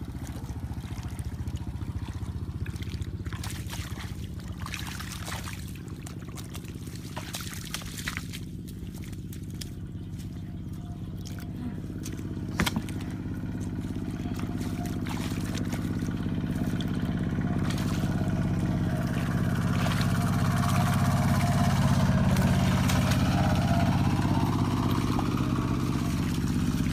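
An engine runs with a steady hum, getting louder through the second half, while hands splash and slosh in shallow muddy water with scattered small knocks.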